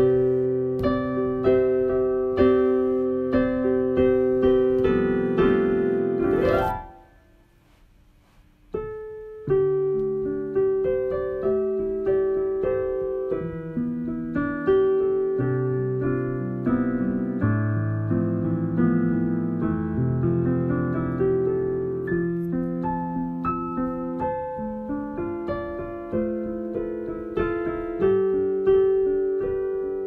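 Solo piano music playing a run of notes. About six seconds in, it ends in a fast rising sweep and breaks off for about two seconds, then the piano starts up again.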